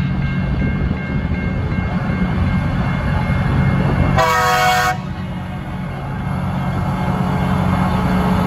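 Tasrail TR-class diesel locomotives hauling a container freight train, engines running with a steady drone as they draw closer. A little past the middle comes one short blast of the multi-tone train horn, under a second long.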